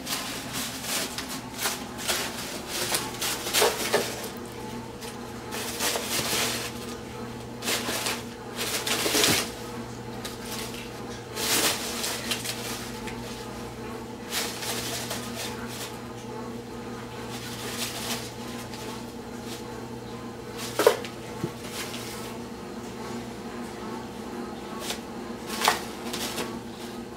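Crumpled paper in a cardboard box crinkling and rustling in irregular bursts as a kitten pounces and burrows in it. Two sharp knocks come in the second half, and a steady low hum runs underneath.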